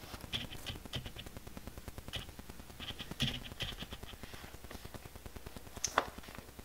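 Faint handling noises of a small packed canvas clutch: light scuffs and small clicks, with one sharper click about six seconds in.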